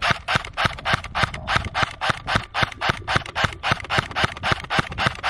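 Airsoft gun firing shot after shot in a steady, fast string of sharp cracks, about five a second, a pace of rapid single trigger pulls rather than full-auto.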